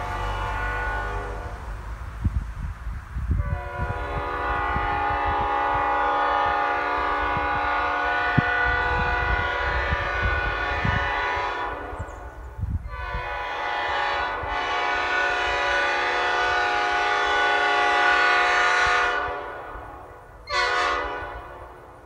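A 3D-printed replica of a Nathan Airchime P5 five-chime train horn, run on air at 120 psi, sounding its chord in long blasts: one dies away about a second in, a long blast starts after a few seconds, another follows after a brief gap, and a short toot comes near the end. A passing car rumbles low beneath the first blasts.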